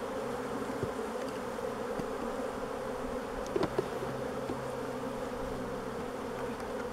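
Many honeybees buzzing in a steady hum from an open hive whose frames are being lifted out, with a couple of faint knocks about halfway through.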